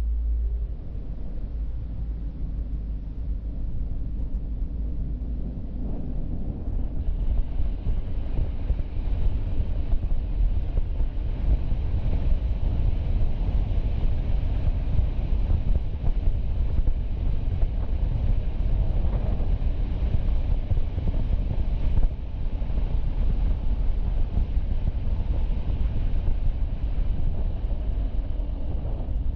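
Car driving: steady low road rumble and tyre noise with wind on the microphone. It grows a little louder about seven seconds in, as a higher hiss joins.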